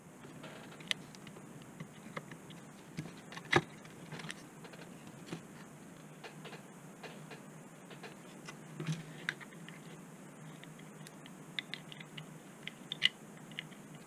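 Scattered small clicks and taps as a circuit board and hand tools are picked up and set down on a workbench. The loudest knock comes about three and a half seconds in, with a quick run of clicks near the end.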